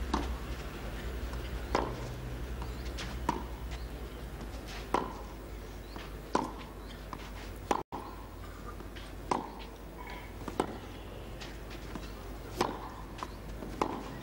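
Tennis ball struck back and forth with racquets in a baseline rally on a clay court: sharp pops about every one and a half seconds, over a steady low broadcast hum. The audio drops out briefly about eight seconds in.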